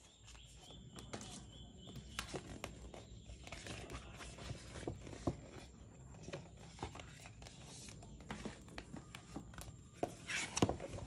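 Stiff printed card and a glossy folded brochure handled by hand: rustling and sliding of card with many light scattered clicks and taps, and a louder rustle about ten seconds in.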